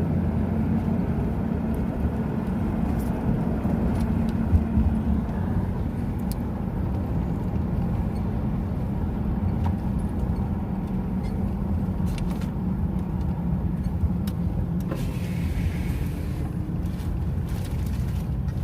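Steady low rumble of a road vehicle running, with a held low hum under it.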